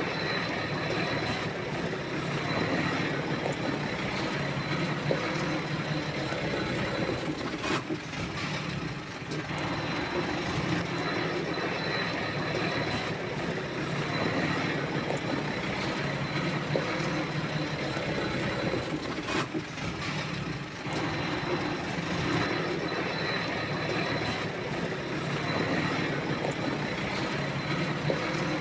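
Bulldozer's heavy diesel engine running steadily under working load, swelling and easing every few seconds, with a thin steady high whine over it. Two brief sharp clicks or knocks come about a third and two-thirds of the way through.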